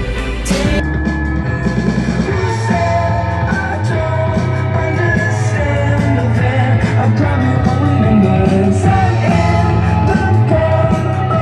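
Indie rock song with singing, guitar and drums.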